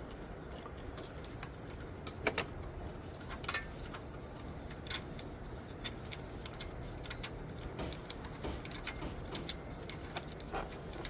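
Scattered metallic clinks and taps of hand tools and loose bolts while parts are taken off the engine, with two sharper knocks about two and three and a half seconds in, over a steady low hum.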